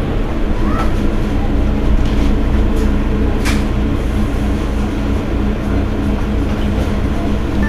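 Mercedes-Benz Citaro Facelift city bus idling while stopped: a steady low engine rumble with a constant hum, heard from right behind the bus. A sharp click about three and a half seconds in.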